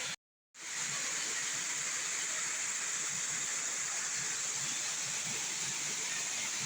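Waterfall rushing with a steady hiss of falling water. The sound cuts out completely for a split second just after the start, then resumes.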